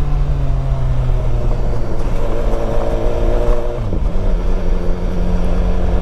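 BMW S1000XR's inline four-cylinder engine on the move, heard from the rider's seat with heavy wind rumble on the microphone. The engine note sinks over the first second, holds steady, then jumps up quickly about four seconds in.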